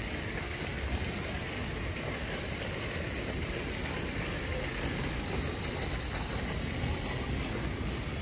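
Steady background noise with a low rumble and a hiss, and no distinct events.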